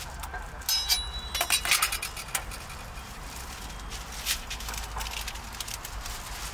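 A cluster of light clinks and taps with brief high ringing, from about one to two and a half seconds in, then a few scattered ticks, over a steady low rumble.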